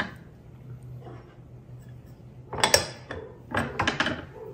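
Table knife scraping and clinking against bread, a ceramic butter dish and a wooden cutting board while butter is spread, in two short clusters of strokes a little past the middle.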